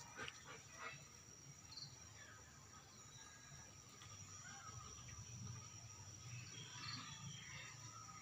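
Faint birds calling, a few short high chirps and scattered calls, over a steady high-pitched insect hum.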